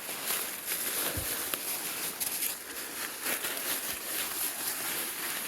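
Scattered footsteps and scuffs on rock and loose debris over a steady outdoor hiss.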